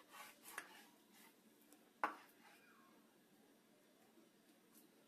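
Faint crackling scrapes of a knife slicing through partly frozen chicken breast on a wooden cutting board, with one sharp tap about two seconds in.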